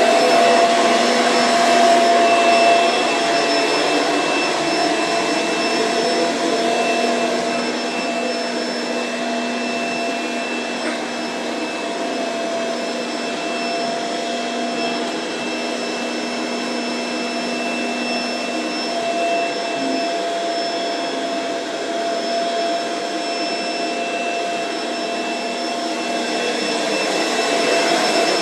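Vacuum cleaner running steadily, a motor whine made of several fixed tones over a rushing airflow noise; it eases off a little in the middle and grows louder again near the end.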